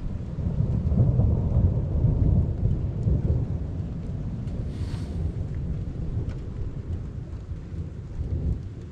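Rolling thunder: a deep, uneven rumble that is loudest in the first few seconds and slowly dies away, over steady rain. A brief hiss comes about five seconds in.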